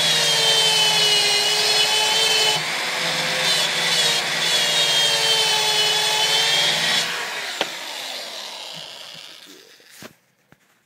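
Electric drill spinning a sanding attachment against a rusty metal battery tray, taking off rust and paint. The drill's whine sags and recovers as it is pressed into the metal. About seven seconds in it is let off and winds down, and a sharp click comes near the end.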